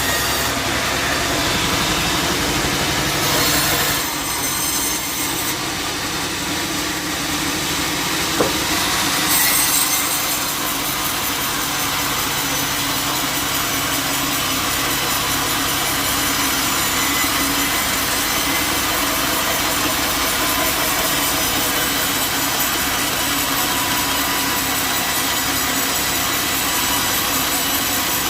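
Bandsaw mill sawing through a jackfruit log: a dense, steady rasp of the blade in the wood over the mill's running motor. The sound is uneven at first, with one sharp click, and settles into an even cut about ten seconds in.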